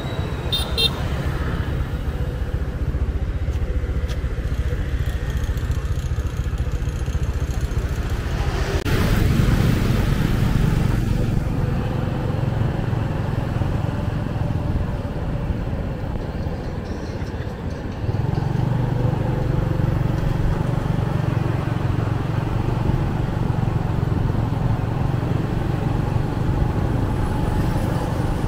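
Motorbike and city road traffic noise, a steady low rumble that swells briefly about nine seconds in and grows louder again from about eighteen seconds.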